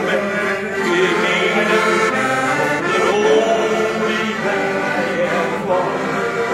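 Piano accordion playing a song with chords and melody, and a man's voice singing along over it.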